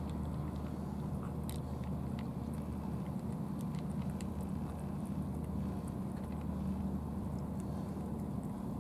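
A steady low engine hum runs throughout, with scattered faint clicks of a cat chewing and biting its food from a dish.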